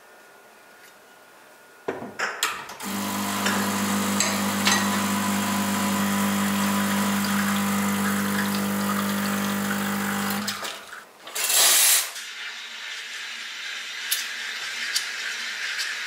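E61-group home espresso machine pulling a shot: a click about two seconds in, then the pump hums steadily for about eight seconds and stops. A short loud hiss of the steam wand being purged follows, then a quieter steady hiss as milk is steamed.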